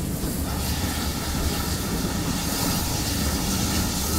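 GWR Collett goods 0-6-0 steam locomotive running along the line, heard close up at its side: a steady low rumble under a hiss that grows stronger about half a second in.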